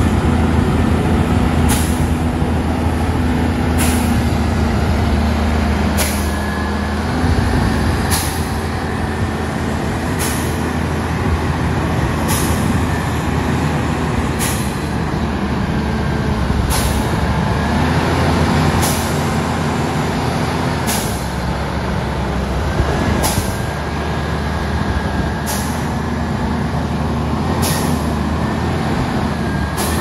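Diesel power pack of a self-propelled modular transporter running steadily with a low drone, with a short hiss repeating about every two seconds.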